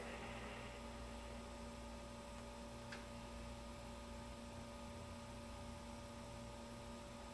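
Faint, steady electrical hum with a few fixed tones over low hiss, and a single faint click about three seconds in.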